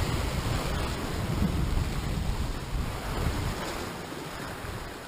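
Sea swell surging and breaking against rocks, with wind buffeting the microphone; the wash slowly dies down toward the end.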